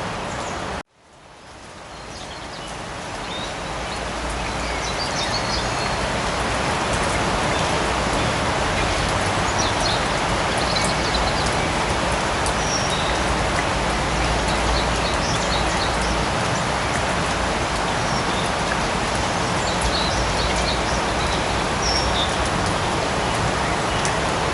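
Steady light rain falling in a forest, an even hiss with occasional short bird chirps above it. About a second in the sound cuts out abruptly, then fades back in over several seconds, as at the splice of a looped recording.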